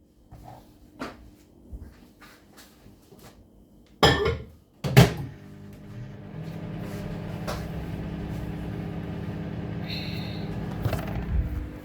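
Small clicks and then two loud knocks, like a kitchen cupboard door being shut, followed by the steady low hum of an appliance running for about six seconds.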